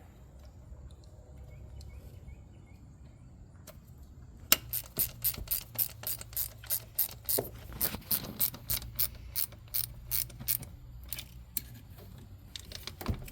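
Hand ratchet clicking in quick back-and-forth strokes, about four sharp clicks a second, starting about four seconds in and stopping about three seconds before the end, as it runs down the small screws holding a new ignition module.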